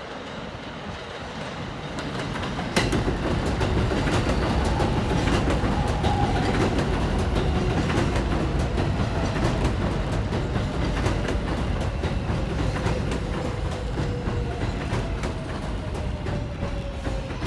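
Kawasaki R188 subway train pulling into the station: a rumble that builds as it approaches, a sharp click about three seconds in, then steady wheel noise clacking over rail joints. A motor whine falls slowly in pitch as the train slows.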